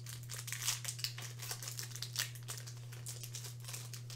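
Foil Pokémon booster pack wrapper crinkling in the hands, with irregular sharp crackles, as the pack is opened and the cards handled.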